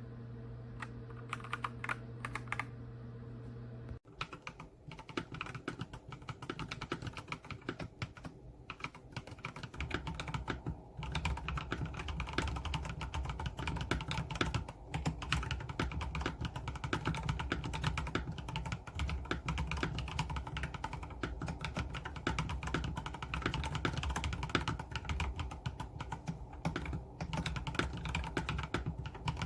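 Redragon K689 mechanical keyboard with linear switches being typed on. A few scattered keystrokes over a steady hum in the first four seconds, then fast, continuous typing for the rest.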